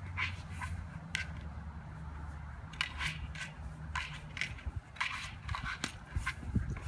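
A husky biting and gnawing a hard plastic Jolly Egg dog toy: irregular sharp clicks and crunches of teeth on the plastic, about one or two a second.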